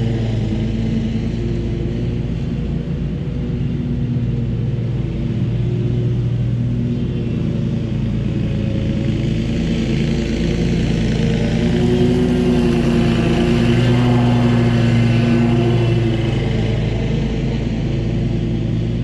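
Scag V-Ride II stand-on commercial mower's engine running steadily at working speed while mowing, its pitch and level lifting slightly about two-thirds of the way through before settling back.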